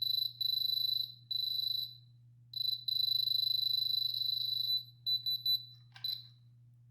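Handheld diamond tester beeping with a high steady tone as its probe is touched to the bracelet's stones: a few beeps under a second each, one long beep of about two seconds, then a quick run of short beeps about five seconds in. The beeping is the tester reading the stones as diamond.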